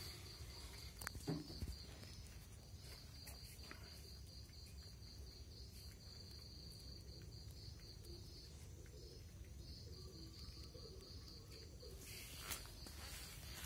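Steady high insect trill, rapid pulses, with a cat softly lapping water from a plastic basin. A short louder sound comes about a second in.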